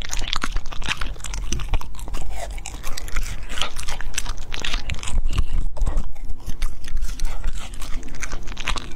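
A Border Collie crunching and chewing blackberries, a dense run of quick crisp bites and chews.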